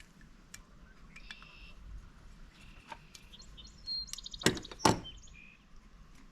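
Birds chirping faintly in the background, broken by two sharp clicks less than half a second apart about four and a half seconds in.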